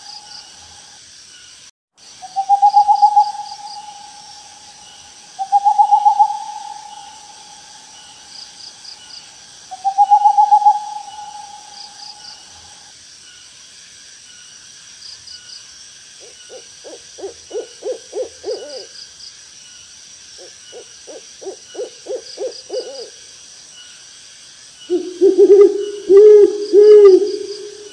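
Owl calls: three long, even hoots about 3–4 s apart, then two bouts of rapid quavering trills, then louder, lower hoots near the end. A faint, high, rhythmic chirping runs underneath.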